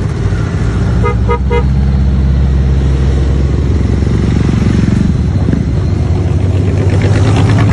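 Motorcycles in a group ride, Honda Gold Wing touring bikes among them, passing close by with their engines running steadily. About a second in, a vehicle horn gives three quick toots.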